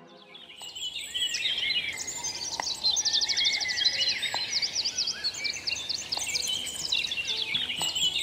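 Recorded birdsong: a dawn-chorus-like mix of many birds chirping, whistling and trilling, fading in about half a second in, used as a soundscape in an electronic music set. A few low notes begin near the end.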